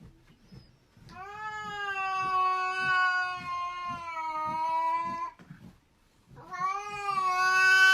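Cat yowling in a fighting standoff: a long drawn-out wail of about four seconds, then a second one starting near the end.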